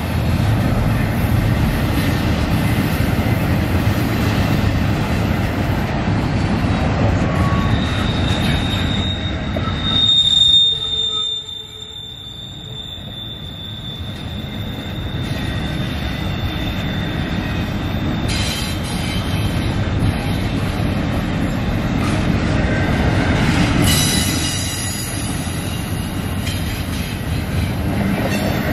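Double-stack intermodal well cars rolling past on steel rails, a steady heavy wheel-on-rail rumble, with a thin high squeal holding for about ten seconds in the middle.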